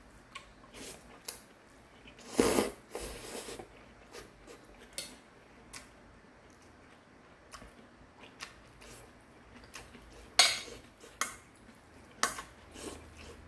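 A person eating noodles from a stainless steel bowl with metal chopsticks: scattered light clinks and scrapes of the chopsticks against the bowl. Louder eating noises come about two and a half seconds in and again about ten seconds in.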